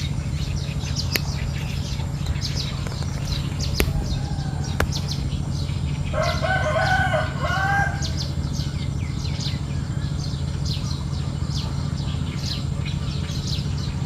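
Rural bird ambience: small birds chirping throughout over a steady low background noise, and a rooster crowing once, for about two seconds, in the middle.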